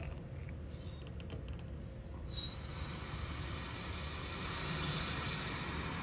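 Refrigerant hissing as the service valve of a Lennox XC20 outdoor unit is opened, releasing the stored charge into the evacuated line set. A few small metallic clicks of the tool on the valve about a second in, then a steady hiss that starts suddenly about two seconds in.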